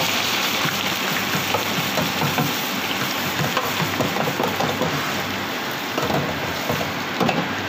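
Diced yellow tofu deep-frying in a deep fryer, the hot oil bubbling and crackling steadily.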